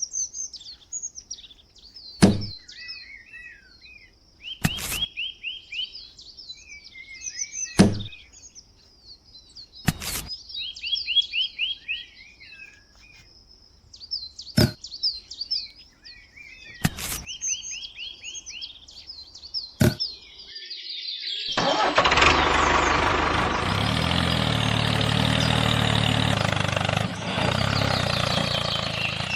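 Birds chirping, with a sharp click every two to three seconds. About three-quarters of the way through, a small motor, likely the homemade mini truck's, starts and keeps running loudly and steadily.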